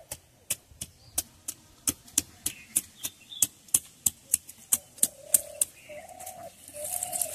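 Hens clucking in short calls, most of them after about five seconds, over a steady run of sharp clicks at about three a second.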